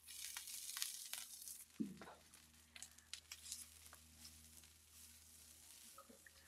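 Yellow wax beans sizzling faintly on a flat-top griddle, a fine crackle with small pops, busier for the first couple of seconds and then settling to a softer sizzle.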